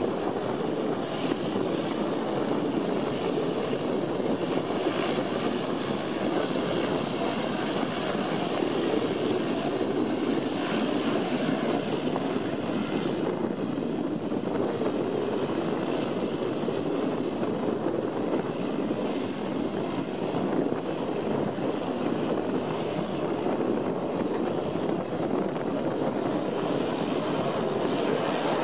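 Twin turboprop engines of a de Havilland Canada DHC-6 Twin Otter floatplane running steadily as it taxis away on the water: a steady propeller drone with a faint high whine above it that wavers in pitch.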